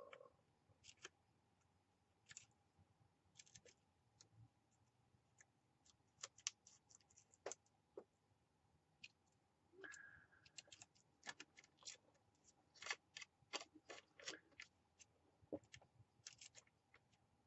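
Small craft scissors making short, irregular snips as a little owl shape is cut out, with faint rustling of the piece in the hand.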